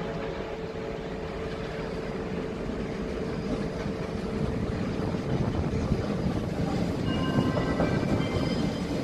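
České dráhy InterPanter electric multiple unit rolling past on the station tracks, its rumble growing louder as it comes closer. A steady hum from the train runs until about five seconds in, and a few faint high squeals sound near the end.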